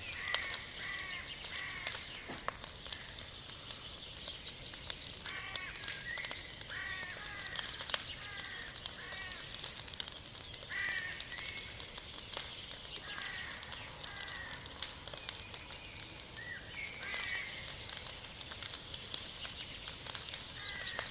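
Wood fire crackling, with sharp pops scattered throughout over a steady high hiss.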